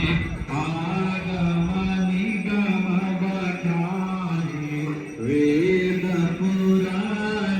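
Chanted music: a man's voice holding long, steady notes that step up and down in pitch.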